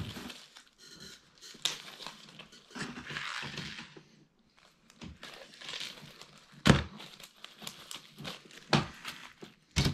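Lego Technic pieces being handled: plastic crinkling and rustling, with a few sharp clicks of plastic parts knocking together in the second half.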